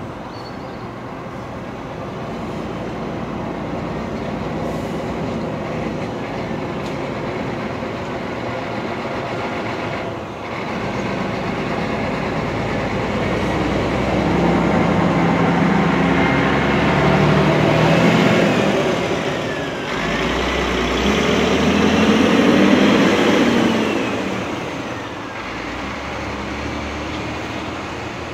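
LNER A3 Pacific 60103 Flying Scotsman, a three-cylinder steam locomotive, working hard as it approaches with its train. Its running grows steadily louder to a peak near the end, then eases slightly.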